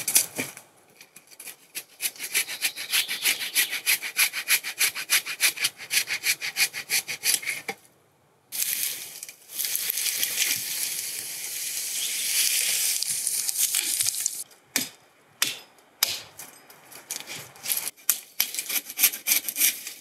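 Hand saw cutting through a fallen pine trunk in quick, even back-and-forth strokes, which break off about eight seconds in. A few seconds of steady rustling and scraping through branches follows, then scattered knocks and a fresh run of sawing strokes near the end.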